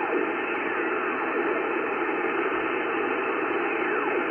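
Hiss of band noise from an ICOM IC-7300 HF transceiver's receiver, tuned steadily across the 20-metre band in upper sideband. A few faint whistles glide down in pitch as the dial sweeps past other signals.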